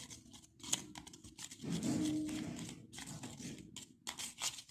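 A spoon stirring and scraping thick screen-printing paint in a plastic bowl, with quick, irregular scrapes and clicks. A brief low drawn-out sound rises over the stirring about two seconds in.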